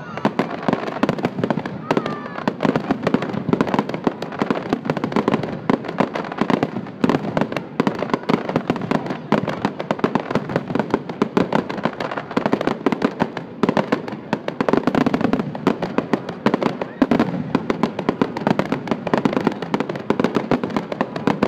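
Aerial fireworks display at full intensity: a dense, unbroken barrage of shell bursts and crackling, several bangs a second.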